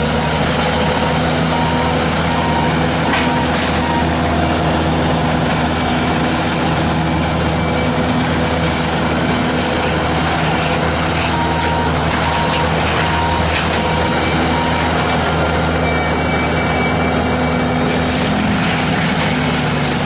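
Bobcat T770 tracked skid steer's diesel engine running steadily under load, with its reversing alarm beeping in two spells, near the start and about halfway through.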